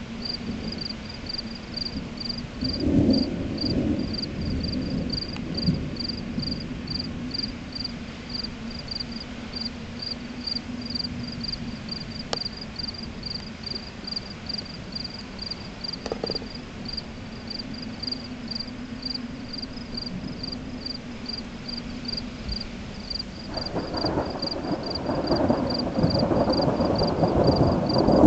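Crickets chirping steadily, about two chirps a second, over a steady low hum. Distant thunder rumbles briefly about three seconds in, and a louder, longer rumble of thunder from the approaching storm builds near the end.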